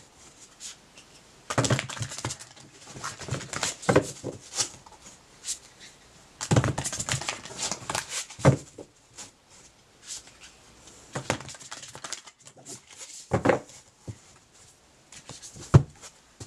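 Deck of oracle cards being shuffled by hand, in several short bouts of flicking and rustling.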